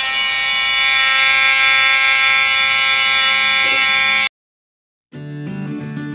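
Dremel oscillating tool with a half-moon blade cutting into a Plexiglas aircraft canopy: a loud, steady, shrill buzzing screech with many overtones that cuts off suddenly about four seconds in. After about a second of silence, guitar music starts.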